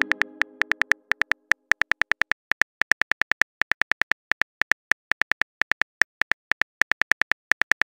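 Phone keyboard tap clicks, several a second at an uneven pace, as a text message is typed letter by letter. The tail of a short musical chime fades out in the first second or so.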